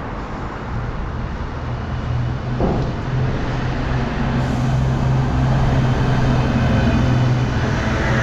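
Street traffic, with a motor vehicle's engine running close by; a steady low hum comes in about three seconds in and holds.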